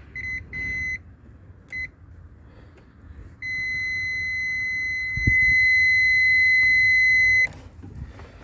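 Digital multimeter's continuity buzzer beeping as its probes touch both ends of a blade fuse: a few short broken beeps, then one long steady beep of about four seconds. The unbroken tone shows the fuse is intact.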